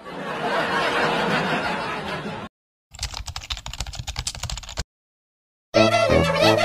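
Computer-keyboard typing sound effect: a quick run of clicks lasting about two seconds, after a couple of seconds of noisy murmur. Music with a steady beat starts near the end.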